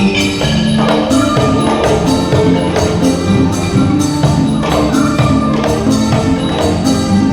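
Thai piphat ensemble playing, with mallet-struck pitched percussion over a steady beat of small hand cymbals and drums.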